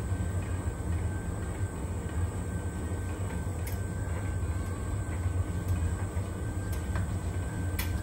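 Beko DPHR8PB561W heat pump tumble dryer running a Cotton Extra Dry cycle, its drum tumbling a load of towels. It makes a steady low hum with a faint high whine over it, and a few light clicks.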